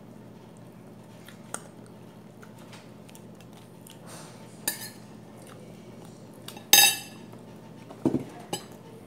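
Metal cutlery clinking against plates during a meal: a few separate sharp clinks, the loudest ringing about two thirds of the way through, then a couple of duller knocks near the end, over a steady low hum.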